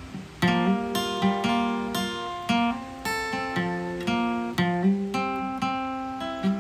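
Acoustic guitar music: plucked notes and strums, several a second, each ringing and fading.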